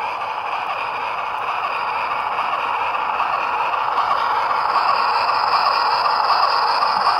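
Sound decoder of an HO scale Union Pacific Challenger steam locomotive model playing its steam exhaust through the model's small speaker as it runs, a hissing, rustling sound that grows steadily louder.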